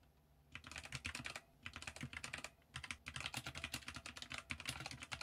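Rapid, faint typing clicks, a keystroke sound effect laid under on-screen text being typed out letter by letter, pausing briefly twice.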